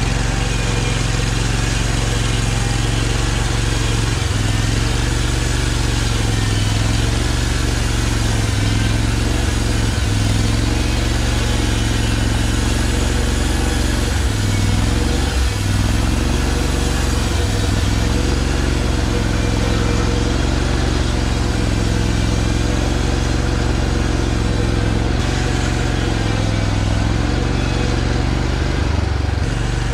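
Sawmill engine running steadily at speed, its pitch dipping slightly now and then.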